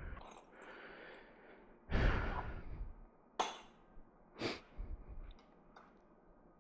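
A man's heavy, exasperated sigh and breathing, followed by a few short, sharp clicks.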